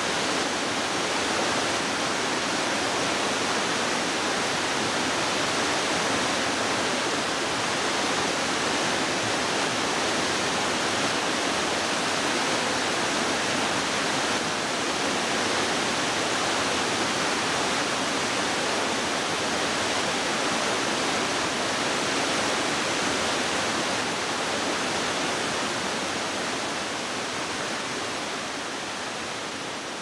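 Water rushing steadily down a tiered waterfall, spilling over many low rock steps, fading gradually over the last few seconds.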